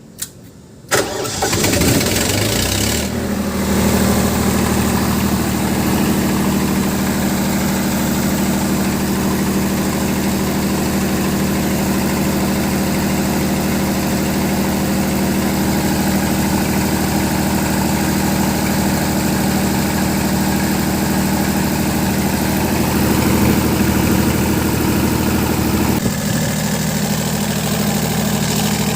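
An old generator set's engine starting about a second in with a short click before it, then running steadily at idle; its note shifts slightly near the end.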